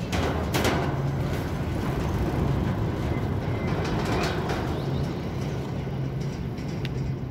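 Steady low rumble of city traffic with an engine-like hum, broken by a couple of short noises near the start and another about four seconds in.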